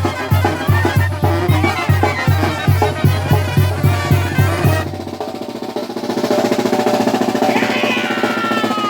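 Mexican banda music: brass and reeds over a steady bass-drum beat, about three beats a second. About five seconds in the beat stops for held brass notes with a drum roll, and near the end a run of high notes slides downward.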